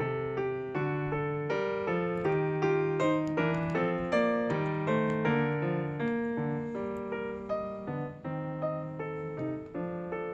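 Background piano music: a gentle melody of struck notes, each dying away.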